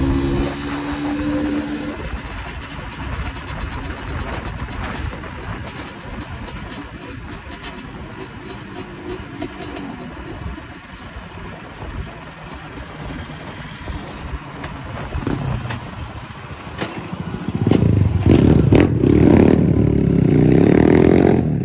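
Hengjian 250 two-stroke dirt bike engine heard from the rider's seat, running at low throttle along the road, then growing much louder near the end as it is revved up.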